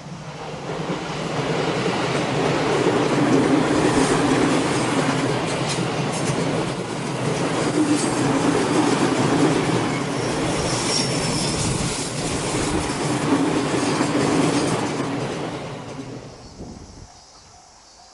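Train passing on a railway curve. Its wheels clatter over the rail joints, with a brief high wheel squeal about eleven seconds in. The sound builds over about two seconds and dies away near the end.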